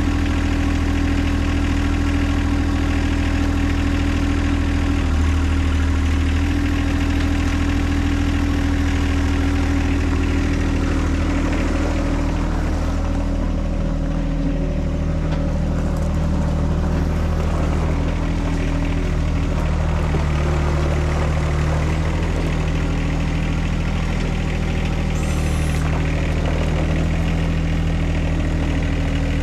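John Deere 2025R compact tractor's three-cylinder diesel engine running steadily. Its note changes a little under halfway through as the tractor drives off, and it keeps running as the tractor comes back.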